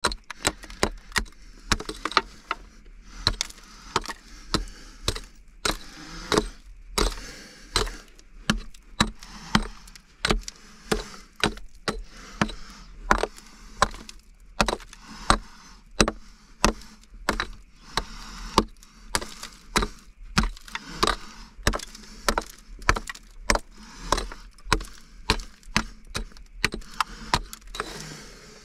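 Repeated sharp strikes, about two a second, with a fainter scraping noise between them.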